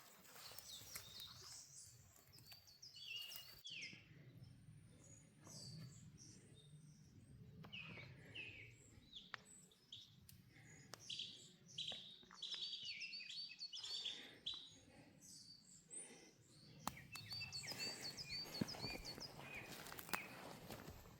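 Small birds chirping faintly, in runs of quick, high, repeated notes that are busiest about halfway through and again near the end.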